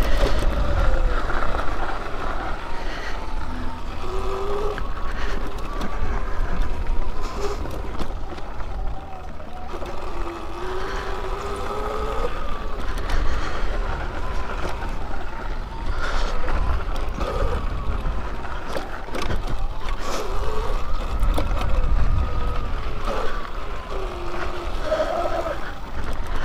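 Electric dirt bike's motor whining, its pitch sliding up and down with speed, over a steady low rumble of wind and tyres on the trail, with scattered knocks and rattles from the bike over rough ground.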